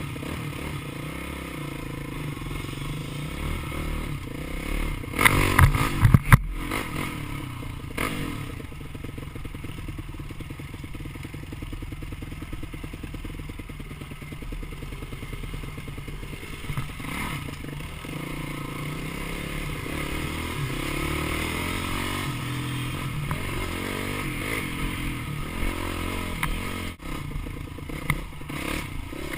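Dirt bike engine running as it is ridden, its pitch shifting up and down with the throttle, with a cluster of loud clattering knocks about five to six seconds in.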